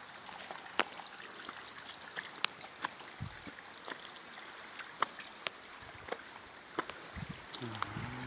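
Shallow creek water running over a rock bed, a steady rushing hiss. Sharp clicks are scattered through it, with a couple of low thumps.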